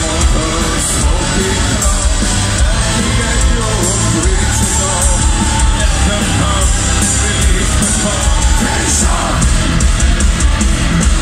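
Loud live industrial-metal concert music from an arena PA, with heavy bass and drums under a man's singing voice, heard from within the crowd.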